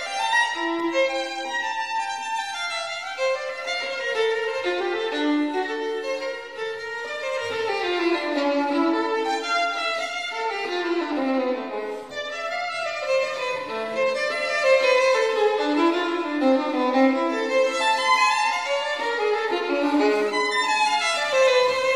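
Background music: a violin playing a flowing melody of quick running phrases, with falling runs of notes around the middle and again near the end.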